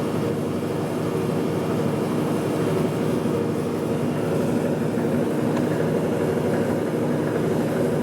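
Milling machine running steadily, its spindle driving a 1/4-inch carbide end mill down into a valve-block bolt hole to mill out a broken-off drill bit and easy out. The motor's steady hum holds at an even pitch throughout.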